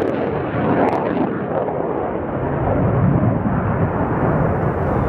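Jet aircraft flying a display pass, a steady rushing engine noise that is heavy in the low end; its higher hiss fades during the first second or so.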